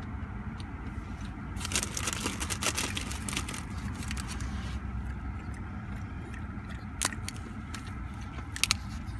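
A French bulldog–pug mix crunching fresh garden peas, with a crackly run of crunching a couple of seconds in and a few sharp single crunches near the end. A steady low car rumble runs underneath, heard from inside the cabin.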